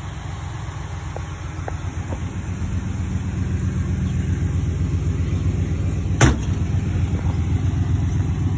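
1970 Oldsmobile Cutlass engine running with a steady, low, pulsing exhaust note that grows a little louder after about two seconds. A single sharp click comes about six seconds in.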